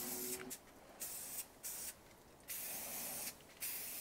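Aerosol cooking-oil spray can hissing in several short bursts with brief gaps between them, oil being sprayed onto hot grill grates to re-season them.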